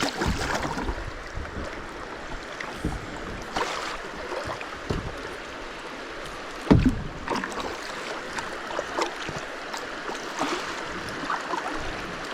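Kayak on a running creek: paddle strokes splashing over the steady rush of moving water, with one sharp knock a little past halfway.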